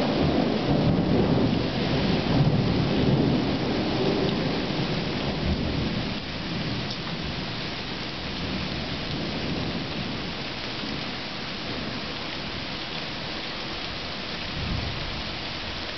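Thunderstorm: a long rumble of thunder that fades away over the first several seconds, under steady heavy rain that carries on alone afterwards.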